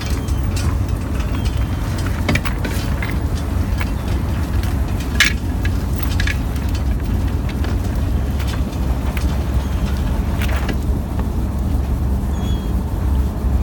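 Fishing trawler's engine running steadily with a low rumble, while the net is hauled in over the stern roller. A few short sharp knocks stand out, the loudest about five seconds in and again about ten and a half seconds in.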